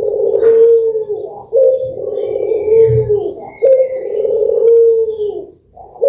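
Puter (Barbary dove) cooing: a run of long, low coos, each opening with a short higher note and then held with the pitch sagging slightly, about four in a row with brief breaks between. Faint high chirps sound behind them.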